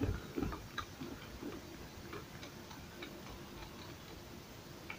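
Screwdriver backing out the long screws that hold the field winding inside a Bort angle grinder's housing: faint, irregular small clicks, most of them in the first couple of seconds.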